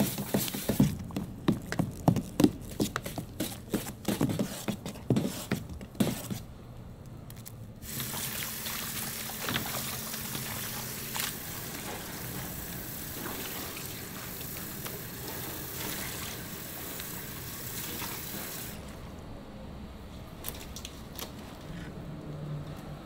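A quick run of knocks and clatter for about six seconds, then water running or pouring steadily for about ten seconds before it stops.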